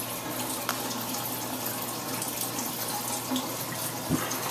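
Tap water running steadily into a sink, with a brief low thump about four seconds in.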